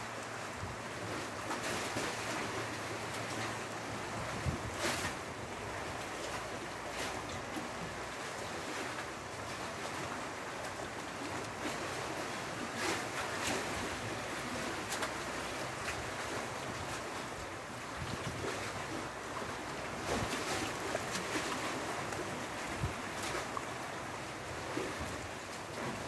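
Sea surf washing steadily against the shore, with a few brief sharp clicks scattered through.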